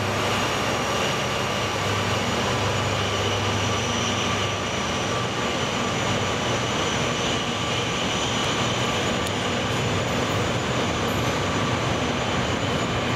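Coaches of the Seven Stars in Kyushu cruise train rolling past at low speed as the train pulls out of the station: a steady running noise of wheels on rail, with a low hum and a faint thin whine over it.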